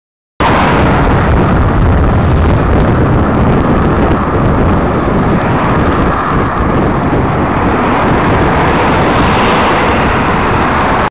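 Loud, steady wind rumble on the microphone of a camera riding on a moving bicycle, mixed with road and passing-traffic noise. It cuts in abruptly about half a second in.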